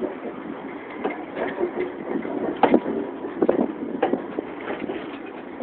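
Rail vehicle rolling along the track: a steady rattling run broken by irregular clanks, the loudest a little under three seconds in.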